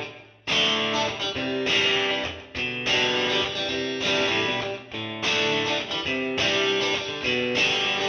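Instrumental music in phrases of steady held notes, breaking off briefly every two seconds or so.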